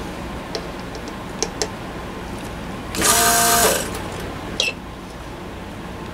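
A few light clicks, then about three seconds in a loud buzzing burst of under a second from a small electric pump, typical of a vacuum desoldering tool drawing solder off a capacitor's leads. A single sharp click follows.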